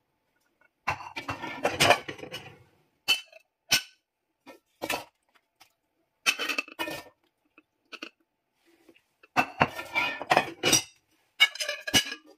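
A porcelain plate and its perforated ceramic draining insert clinking and clattering as they are handled, in several separate bursts of sharp knocks.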